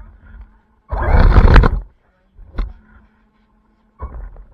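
RC car, heard from on board, pulling away under throttle: a loud rush of motor and tyre noise lasting under a second, a short burst a second later, and another short burst near the end.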